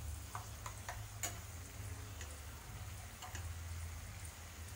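Tomato and chilli masala sizzling faintly in oil in a kadai, with a few light clicks of a steel spatula against the pan over a low steady hum.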